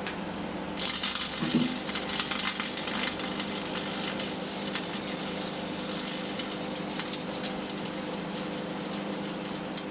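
Microwave oven running with a steady hum; about a second in, a loud crackling, sizzling hiss of electrical arcing from the sealed beam headlamp inside starts and keeps going, easing somewhat near the end.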